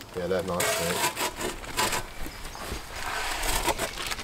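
Scraping, rubbing and knocking as a pizza is slid into a wood-fired brick pizza oven, with scattered clicks.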